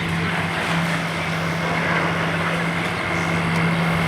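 Steady engine drone with a faint high whine running over it.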